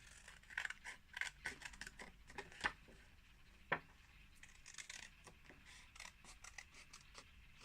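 Scissors cutting a photo print in a run of short, irregular snips.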